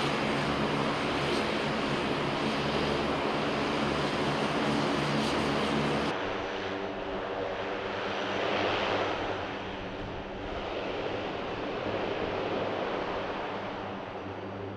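Turboprop engines of C-130 Hercules transport aircraft running with a steady drone and propeller hum on the ground. About six seconds in it cuts to a somewhat quieter, more distant drone from several taxiing C-130s.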